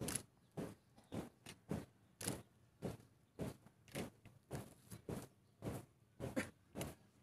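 Marching troop's shoes striking a dirt-and-gravel field in unison, an even step a little under twice a second.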